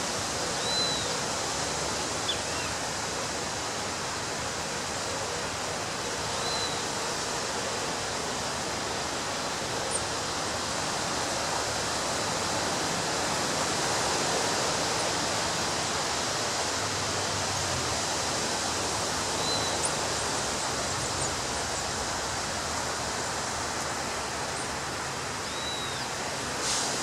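Ocean surf breaking on a beach: a steady wash of waves that swells a little midway, with a few faint, short high chirps now and then.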